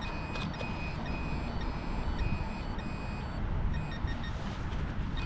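Metal detector beeping steadily at about two high beeps a second, signalling metal in the hole being dug. The beeps fade for a moment past the middle, then resume.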